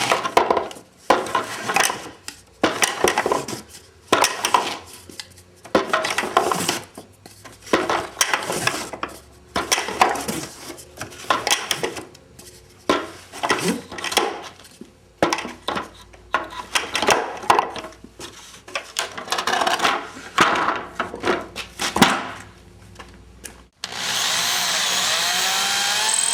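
Repeated scraping, creaking strokes as screws are driven into the mortar rack's frame, coming about one or two a second. Near the end a power drill starts and runs steadily, its pitch rising and falling.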